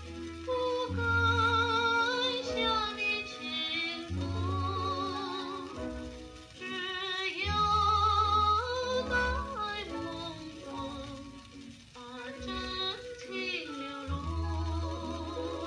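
A 78 rpm record playing music in mono through a Pierre Clément E25N pickup: a melody with strong vibrato over a low accompaniment that comes and goes.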